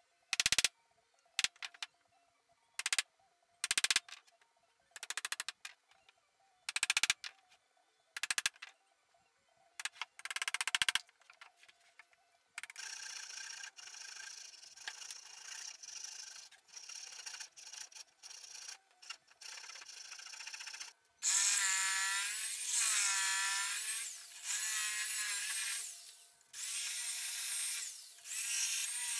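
Wood being hand-sawn, first in separate short strokes and then in a faster, steadier run. About two-thirds of the way in a corded jigsaw starts cutting the plywood, louder, its motor whine rising and falling as it cuts in several stretches.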